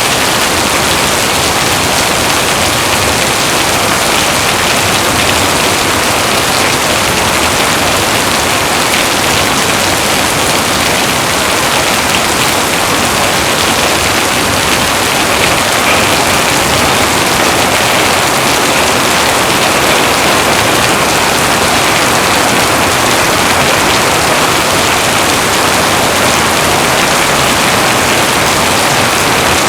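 Heavy rain falling steadily, a dense, even hiss of rain on surfaces with no let-up.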